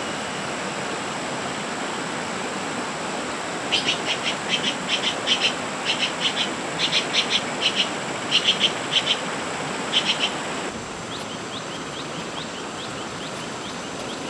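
Steady rain with a shrill chirping call repeated in quick clusters of two or three notes from about four seconds in until about ten seconds in. The sound drops suddenly near eleven seconds, and faint short rising chirps follow.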